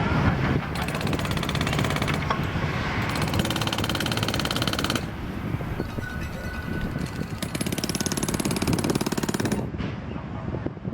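Jackhammer hammering in rapid strokes in stretches of one to two seconds, over construction machinery running steadily. The sound changes abruptly about five seconds in and again near the end.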